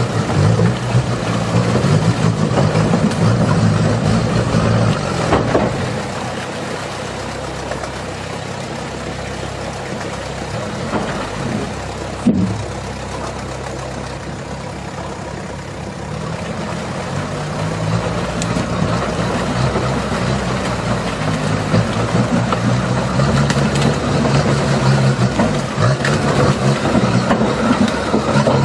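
Sherp ATV's small diesel engine running under load as the vehicle crawls over logs in a stream. The engine note drops back for several seconds partway through and builds again toward the end. There is a single sharp knock about twelve seconds in.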